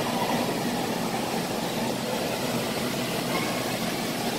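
Steady background noise: an even hiss with a faint steady hum beneath it, and no single event standing out.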